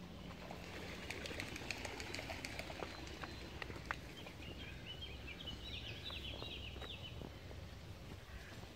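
Small songbirds chirping in the riverside trees, their calls thickest in the second half, over a steady low rumble. A run of sharp clicks and crackles comes in the first few seconds.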